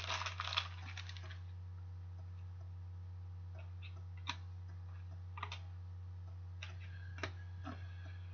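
Trading cards handled by hand. A brief crinkling ends about a second in, then a few soft, isolated clicks and taps over a steady low hum.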